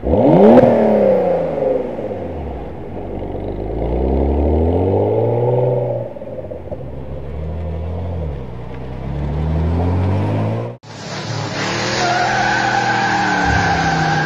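Car engine revving and accelerating, its pitch rising and falling in several long sweeps. A sudden cut about 11 seconds in, then the engine running again with a steady high whine over it.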